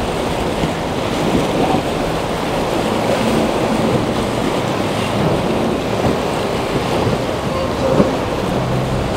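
Waves and wind noise on the microphone, with boat engines running faintly underneath.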